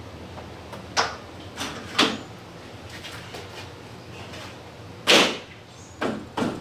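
Polycarbonate hurricane shutter piece being fitted into its frame: a handful of sharp knocks and clacks, the loudest about five seconds in, as the piece is pushed and seated tight.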